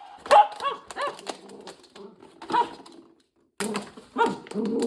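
Cavalier King Charles Spaniel making a few short, whining, talking-like vocalizations that bend up and down in pitch, with another one about two and a half seconds in. The sound cuts out briefly near the end before busier noise returns.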